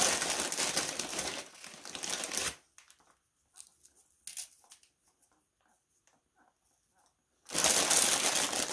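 Plastic cookie bag crinkling as a hand rummages in it for wafers: one bout of about two and a half seconds at the start and another near the end, with a few faint light clicks in between.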